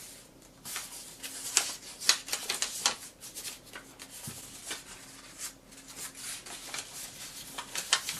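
Origami paper rustling and crinkling in short crackles as it is worked along its existing creases into the tall-diamond petal fold of a bird base.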